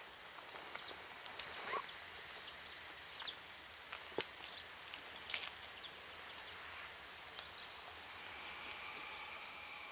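Faint outdoor ambience with scattered short chirps and clicks as an EP07 electric locomotive approaches. About three-quarters of the way in, a steady high-pitched squeal sets in and grows louder: brakes squealing as the train slows for the platform.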